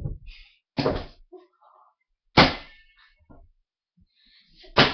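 Three heavy thumps, the loudest about two and a half seconds in, with faint scuffling between them.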